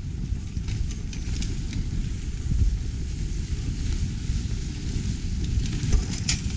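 Dog sled travelling over a packed snow trail: a steady low rumble of the runners on the snow mixed with wind on the microphone, with scattered short crackles of snow, the sharpest near the end.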